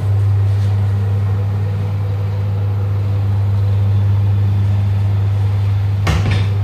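An electric motor switches on and runs with a loud, steady low hum; a single knock comes about six seconds in.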